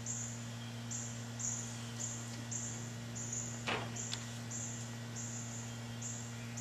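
Outdoor ambience: short high-pitched chirps repeating about twice a second over a steady low hum, with one soft tap a little over halfway through.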